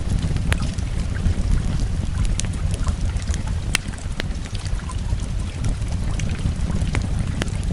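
Fireplace crackling, with irregular sharp pops, over a steady low rumble and hiss of rain.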